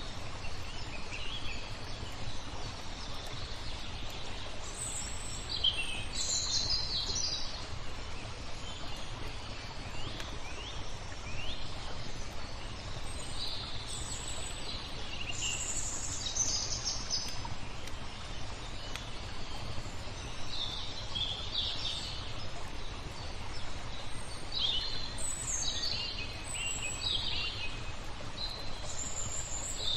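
Songbirds chirping and singing in short, scattered phrases over a steady background of noise with a low rumble.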